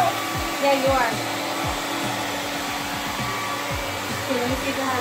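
Handheld hair dryer blowing steadily, a continuous whooshing rush of air with a low steady hum.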